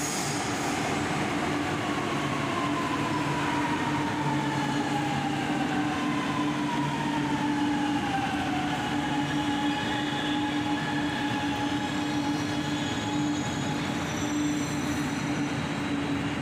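Chennai Metro train pulling into the platform and slowing: a steady rumble of wheels on rails with an electric whine from the traction motors that falls in pitch over several seconds as the train brakes.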